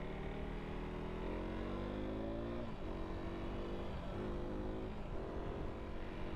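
KTM RC single-cylinder sport bike engine pulling on the road: its pitch climbs for a couple of seconds, drops sharply near the middle at a gear change, then holds steady with two brief breaks. Low wind rumble on the helmet microphone runs underneath.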